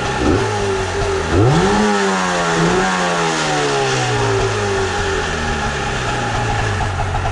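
Rabbit two-stroke engine with a 72 mm bore, running at idle. About a second and a half in, the throttle is blipped once: the revs climb quickly and then fall slowly back to a steady idle.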